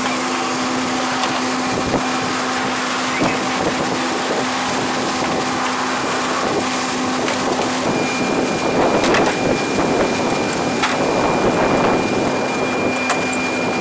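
Steady machinery drone with a constant hum and hiss, like flight-line equipment running, with a higher whine joining about halfway through. A few light clicks and knocks come from plastic trays of inert 25 mm training cartridges being handled.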